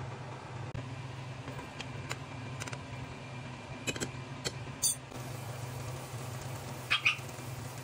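Chicken stock at a rolling boil in a saucepan, reducing: steady bubbling with scattered pops, over a low steady hum.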